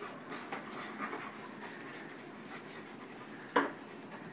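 A dog panting steadily, with a single sharp knock about three and a half seconds in.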